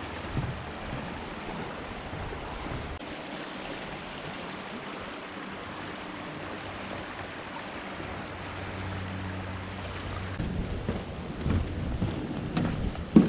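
A creek flowing: a steady rush of water. From about ten seconds in, footsteps strike irregularly on the wooden planks of a footbridge.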